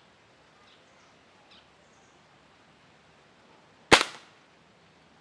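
A single shot from a Precihole NX100 air rifle firing a .177 pellet about four seconds in: one sharp, loud crack that dies away quickly.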